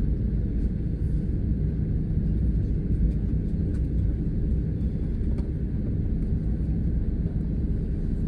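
Steady low rumble inside the cabin of an Airbus A320neo taxiing: the engines at idle thrust and the wheels rolling over the concrete, with a few faint light clicks.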